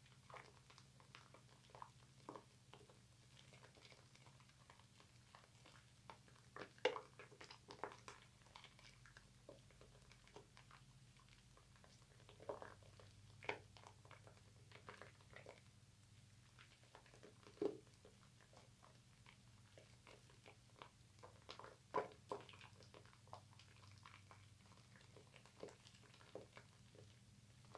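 Wet, soapy hands rubbing and squeezing bar-soap lather: a faint, irregular run of small squishes and pops, with a few louder squelches now and then. A low steady hum runs underneath.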